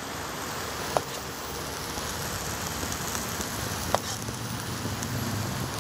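A spoon knocks twice against a skillet, about three seconds apart, as rice is scooped out onto a plate, over a steady hiss.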